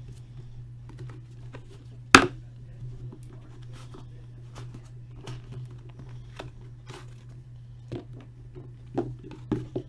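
Trading card packaging being handled and opened: crinkling and tearing, with many small clicks and one loud sharp snap about two seconds in, over a steady low electrical hum.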